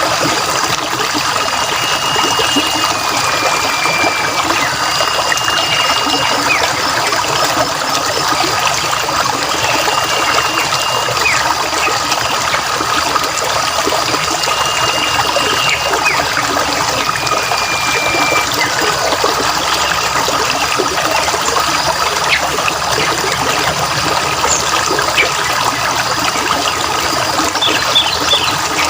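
Steady trickling, splashing running water, with a bird repeating a clear whistled note of about a second, often stepping slightly lower at its end, every few seconds.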